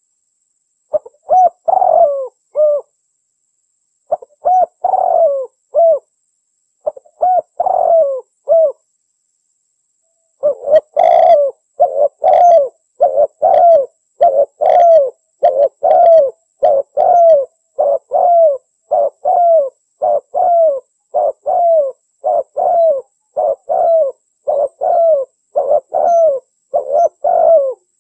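Spotted doves cooing: repeated low coo phrases, each falling in pitch. For the first nine seconds the phrases come spaced out with gaps. After a pause of about a second and a half they run on unbroken, a bit more than one coo a second.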